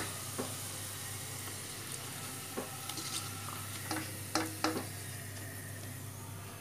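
Hot oil sizzling steadily in a wok where potato pakoras are deep-frying, with a few light knocks of a plastic slotted spoon against the pan as the fritters are lifted out.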